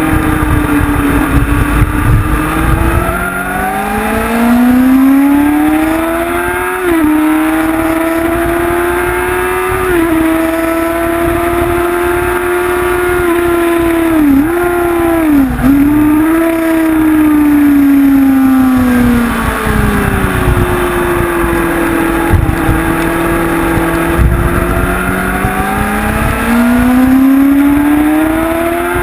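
Honda CBR sportbike's inline-four engine heard onboard at full throttle, its pitch rising through the gears with brief steps at the upshifts. It then drops back with two quick downshift dips, falls to a low steady note and climbs again near the end, with wind rumbling on the microphone.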